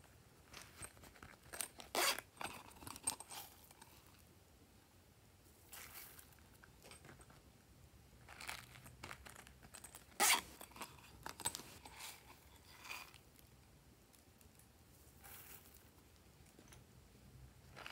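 Hands handling pumpkin-shaped plastic containers over a tray of slime: irregular crackles, rustles and sharp clicks, loudest about two seconds in and again about ten seconds in.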